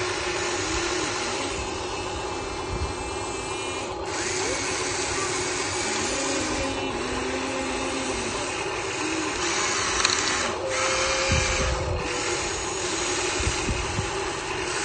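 Small electric motors and gearing of a radio-controlled excavator running steadily with a whining sound. The pitch briefly shifts up and down a few times as the machine moves.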